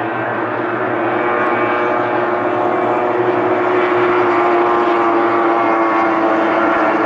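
Racing outboard engine running hard at high revs: a steady, high-pitched motor tone with many overtones that grows slowly louder.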